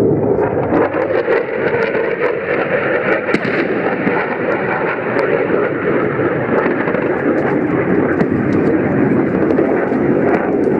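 Military jet aircraft flying overhead: a loud, steady engine rush with no explosion heard.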